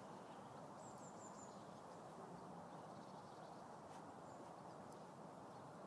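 Near silence: faint steady outdoor background noise, with a short run of high bird chirps about a second in.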